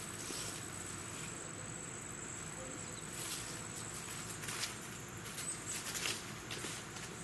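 A steady high-pitched insect trill, like crickets, running on without a break, with a few brief clicks or rustles partway through.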